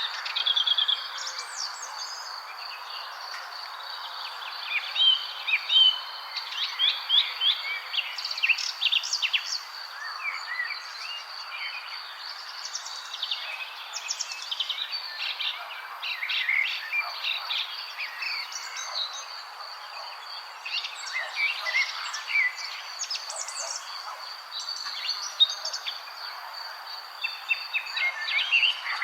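Several small songbirds chirping and twittering in quick, overlapping calls, over a steady high thin drone and a soft hiss.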